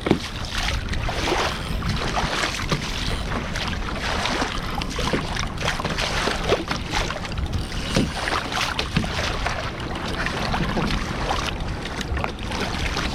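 Wind buffeting the camera microphone over water splashing against a kayak's hull, with scattered short knocks.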